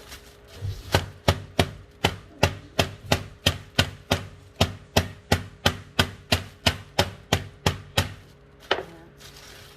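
Rolling pin pounding a chicken breast fillet flat inside a plastic bag on a board: a steady run of about twenty sharp thuds, roughly three a second, with a last single blow after a short pause.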